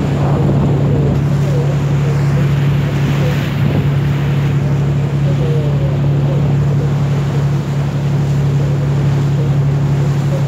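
Steady low drone of a Bosphorus cruise boat's engine heard from on board, with wind buffeting the microphone and the rush of water along the hull.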